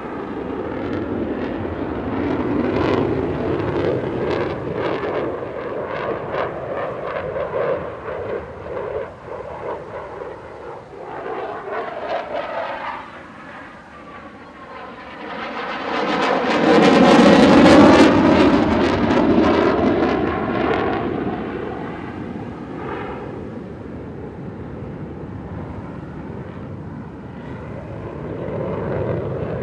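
RAF Eurofighter Typhoon's twin EJ200 jet engines with afterburner lit, a crackling jet noise that dips, then swells to its loudest with a sweeping whoosh as the jet passes close about seventeen seconds in, and fades as it climbs away.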